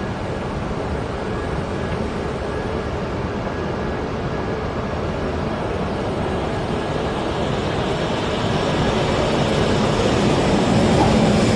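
Passenger train approaching: a steady rumble that slowly grows louder.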